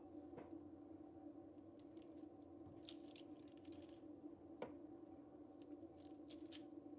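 Faint, scattered clicks and light taps of a glass tea cup and hands on a metal baking tray as flour-dipped glass presses dough balls flat, a small cluster a few seconds in and one sharper click just after, over a steady low hum.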